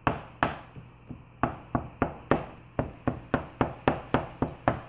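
Red plastic meat chopper knocking against a frying pan as it chops up browning ground sausage: a run of sharp knocks that quickens after about a second to roughly four a second.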